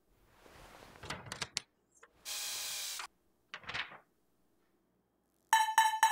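Paper and cardboard rustling as an instruction sheet is handled, with a few small clicks, then a quick run of loud electronic beeps from a small household robot near the end.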